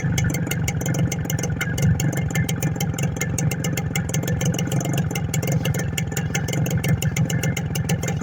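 Suzuki Max R 100 motorcycle's single-cylinder two-stroke engine running steadily, with a rapid, irregular crackle over a low throb and no clear rise in revs.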